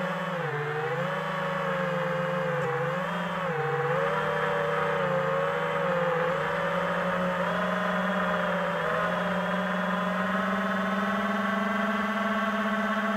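Homebuilt FPV quadcopter's T-Motor Velox 2306 2400 kV brushless motors and propellers whining in flight. The pitch rises and dips with the throttle for the first few seconds, then holds a steady, slightly higher tone as the quad climbs.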